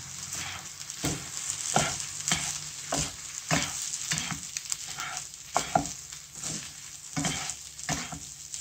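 Egg fried rice sizzling in a non-stick frying pan as it is stirred and tossed with utensils, mixing the soy sauce through. Utensils scrape through the rice and pan in repeated strokes, roughly one or two a second, over the steady frying hiss.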